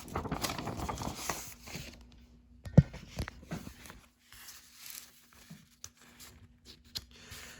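Paper rustling and crinkling as a model kit's folded instruction sheet is handled and unfolded, with one sharp tap about three seconds in and a few lighter rustles after.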